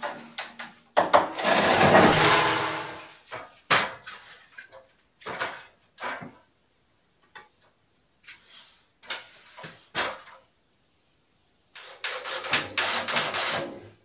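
A long scrape and knocks of a heavy stove-fireplace being shifted on wooden boards, then scattered knocks and a burst of clatter near the end from work up at the ceiling.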